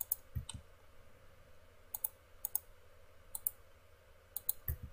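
Computer mouse buttons clicking while drawing in CAD software: about nine short, sharp clicks at irregular intervals, some in quick pairs.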